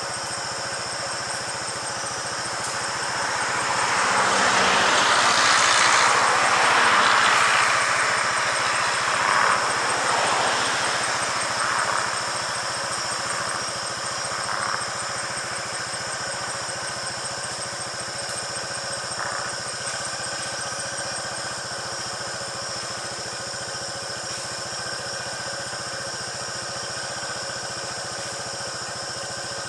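A vehicle engine idling steadily. Another vehicle passes by, swelling up and fading away between about four and ten seconds in.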